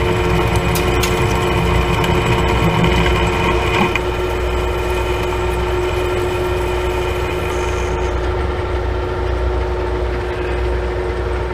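Monarch engine lathe running under power with a steady gear whine, its tool taking a dry turning pass on a 1018 steel sleeve. A high hiss above the whine thins out about eight seconds in.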